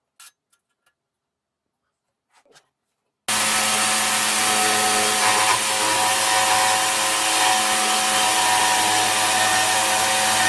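A few faint clicks, then about three seconds in a jigsaw starts abruptly and runs steadily, sawing through wood.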